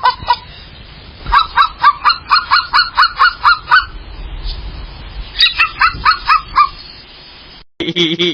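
A bird honking in quick runs of loud calls, about four a second: a long run, a short pause, then a shorter run.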